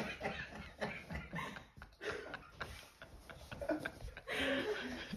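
Golden Retriever puppy's claws ticking and tapping irregularly on a wooden floor, quietly, with a breathy sound about four seconds in.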